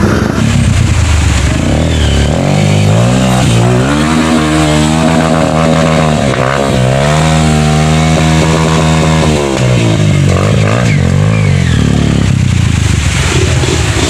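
Dirt bike engine revving up and held at high revs for several seconds, dipping briefly about halfway and picking straight back up, then falling away with a couple of seconds still to go.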